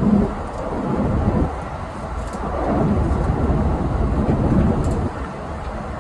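Keikyu 1000 series electric train running, heard from inside the driver's cab: a loud, uneven rumble of wheels on the rails that swells and dips.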